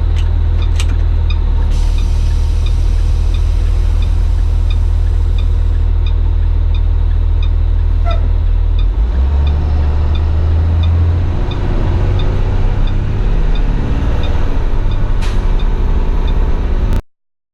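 School bus engine idling with a steady low hum while the hazard flashers tick about twice a second; the engine note shifts about nine seconds in. A few sharp clicks sound, and everything cuts off abruptly near the end.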